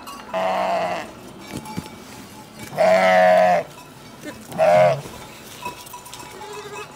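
Villnösser Brillenschaf ewe bleating three times: a call near the start, a louder, longer one about three seconds in, and a short one a second and a half later. The agitated calling of a mother sheep whose lamb is being handled.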